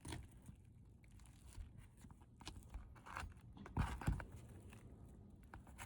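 Irregular crunching and scraping with scattered clicks, and two louder knocks about four seconds in, from working on brittle asphalt roof shingles.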